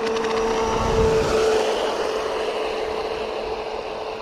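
Traxxas M41 radio-controlled speed boat on 6S power running on a warm-up pass, its brushless motor giving a steady whine over the hiss of the hull and spray on the water. It grows louder about a second in and eases off slightly after.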